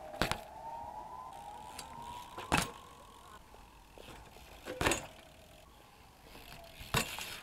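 BMX bikes landing on a concrete skatepark floor after tricks: four sharp knocks about two seconds apart, with the bike's metal parts rattling. A whine that dips and then rises runs under the first three seconds before fading out.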